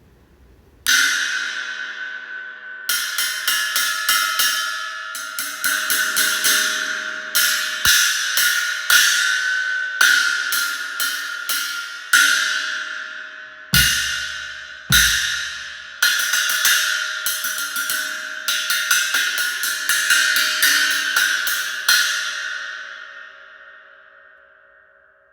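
Zildjian 14-inch Total series China cymbal struck over and over in groups of quick hits, each one leaving a bright, long ringing wash, recorded through a phone's microphone. Two hits about 14 and 15 seconds in come with a heavy low thump. After the last hit, just past 22 seconds, the cymbal rings down to a faint hum.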